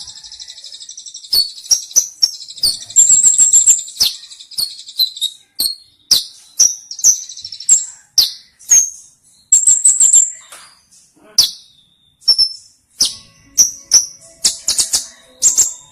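Kolibri ninja sunbird singing: loud, high-pitched chirps and short trills in quick phrases, roughly one or two a second, with a faster twittering run about three seconds in.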